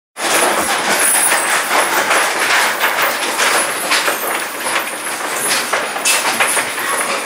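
Stainless steel anchor-type branched chain rattling and clinking in a dense, continuous clatter as weaned piglets nose and bite at it. It starts abruptly just after the opening.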